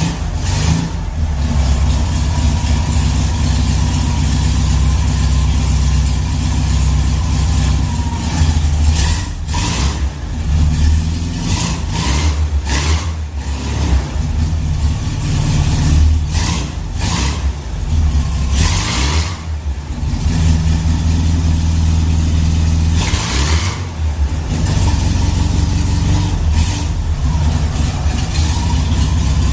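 Volkswagen Beetle 1300's air-cooled flat-four engine running steadily, mostly at idle with a few brief changes in revs.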